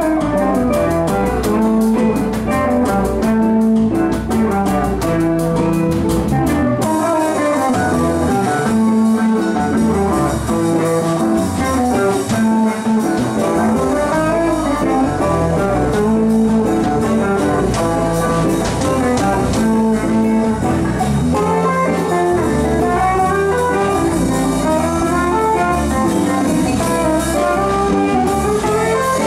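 Live jazz from a small band: two hollow-body electric guitars playing over a drum kit.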